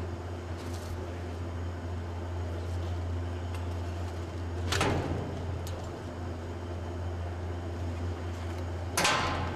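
Steady low hum of foundry machinery, with two sudden sharp noises about four seconds apart, the second one the loudest.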